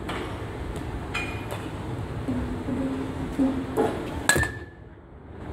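A metal baseball bat striking a pitched ball with a sharp, ringing ping about three-quarters of the way in. Fainter knocks come before it.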